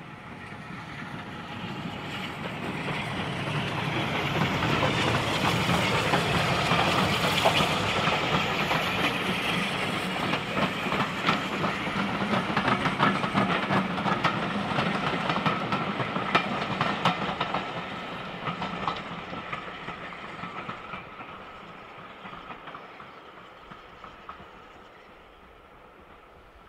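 Steam-hauled train passing by: it comes closer, is loudest about six to eight seconds in, then slowly fades away. Wheel clicks over the rail joints run through the middle of the pass.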